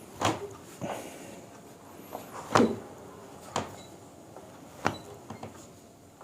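Sharp clicks and knocks from hands-on chiropractic spinal manipulation: about six short strikes spread over several seconds, the loudest about two and a half seconds in.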